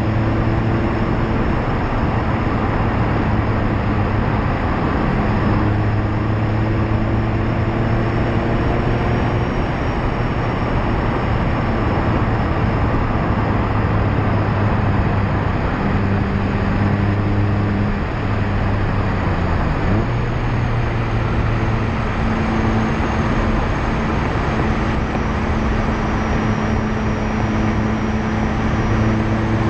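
Loud, steady tyre roar on asphalt picked up at the bumper of a Mazda MX-5 ND2, with the car's four-cylinder engine and exhaust running underneath. The engine note drops out and returns at a new pitch several times as gears are shifted.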